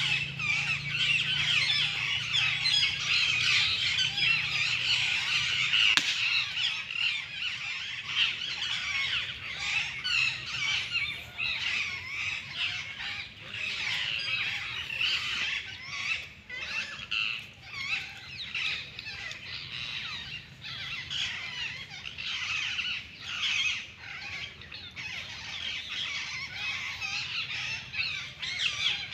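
Many birds chirping and squawking together in a dense, continuous chorus, busiest in the first third.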